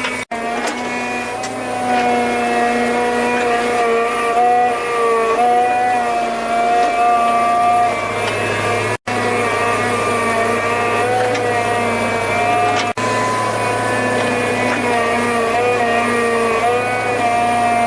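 A small engine or motor running steadily, its pitch wavering up and down as the load changes; the sound cuts out abruptly for an instant a few times.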